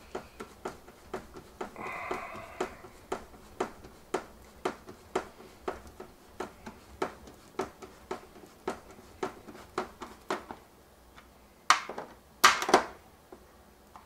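A hand screwdriver driving the screws that hold a new control panel onto a Maytag dishwasher door: a steady series of light clicks, about two a second, with a brief scrape about two seconds in. A few louder knocks near the end.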